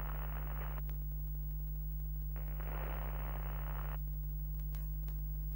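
A steady low electronic hum with two patches of static hiss: one fading out within the first second, and another from about two and a half to four seconds in.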